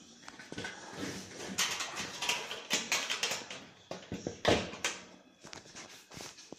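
Irregular handling noise from a steel smoker's metal fittings: rustling, light clinks and knocks as a wire hook is fiddled with, with a couple of sharper clicks about two-thirds of the way in.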